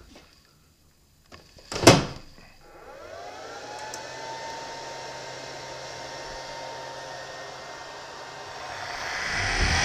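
Harig Super 612 surface grinder switched on: a sharp click, then its motor winding up to speed with a rising whine that levels off into a steady running whine, growing louder near the end.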